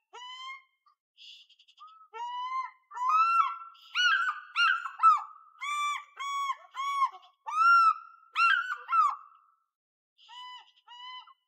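African fish eagle calling for its partner: a long series of short, high yelping notes, several a second, each rising and falling in pitch. The calls are quieter at first, loudest in the middle, and taper off near the end.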